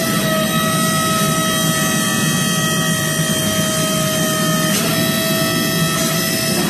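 Steady factory machinery noise: a dense mechanical drone with several constant high hums over it and no separate hammer blows.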